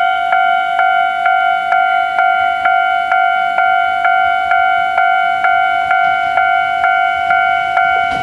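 Japanese railway level-crossing warning bell ringing steadily at about two strikes a second. Each strike is a ringing chime of several tones. The crossing is active, warning that a train is approaching.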